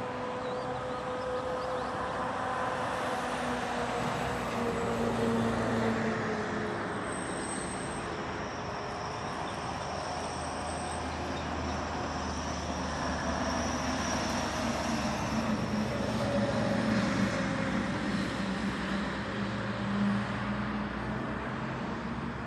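An engine running over a noisy rumble, its pitch drifting down and later rising again.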